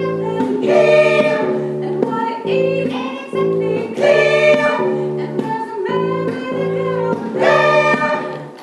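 Live song: several voices singing over sustained chords with electric bass accompaniment. The music stops abruptly near the end.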